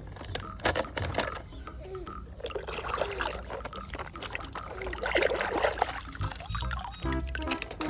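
Water pouring, trickling and splashing over plastic toy vehicles as they are washed of mud.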